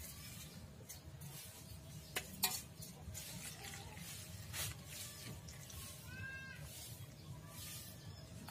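Clicks and taps of a perforated metal colander and chopped mushroom pieces against a stainless steel bowl, then water poured from a plastic jug into the bowl. A short animal call about six seconds in.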